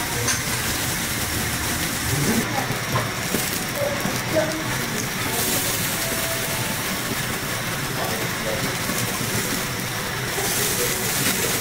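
Slices of beef sizzling on a wire-mesh yakiniku grill over glowing coals: a steady hiss, with faint talk in the background.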